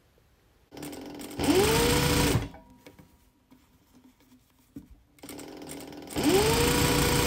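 Industrial straight-stitch sewing machine stitching stretch binding onto a fleece cuff through a binder attachment. It runs in two short bursts, each speeding up with a rising whine that levels off, then stopping abruptly.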